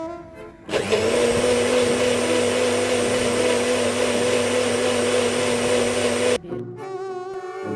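A toy mini blender's small motor runs with a steady whine as it blends grapes for juice. It starts about a second in and cuts off suddenly near the end, after which violin background music returns.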